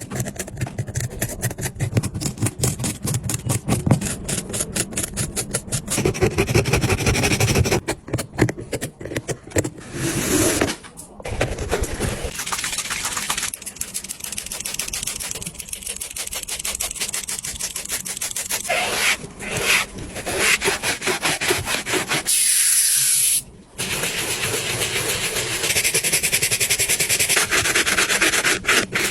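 Rubbing, scrubbing and sanding on a sneaker during repair work, in a series of short clips, often as rapid repeated strokes.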